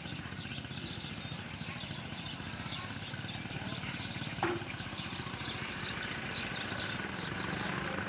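A small engine running steadily at idle, with a brief sharp sound about halfway through.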